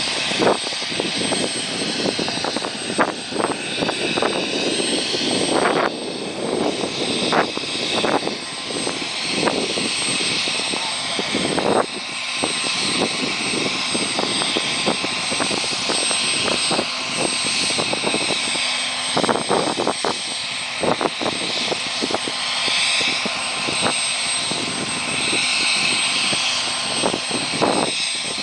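UH-60 Black Hawk helicopter running on the ground: its twin turboshaft engines give a steady high whine over a constant loud rush from the turning rotor. Irregular gusts buffet the microphone throughout.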